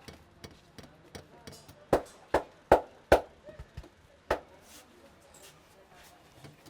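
Hands slapping and chopping on a person's head during a barber's head massage. Four sharp slaps come in quick succession about two seconds in, then one more about a second later, with softer taps between.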